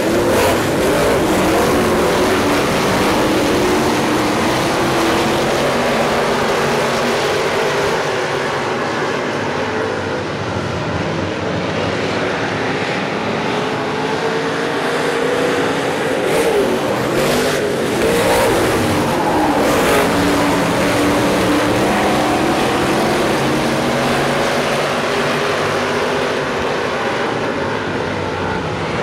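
Pack of hobby stock race cars running laps on a dirt oval, their engines rising and falling in pitch as the cars power through the turns and down the straights.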